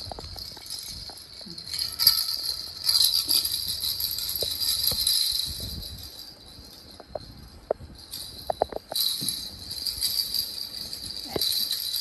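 Plastic baby rattle toy with small bells inside its hollow balls, jingling as it is shaken, in two spells: from about two seconds in to about six, and again from about nine seconds to the end.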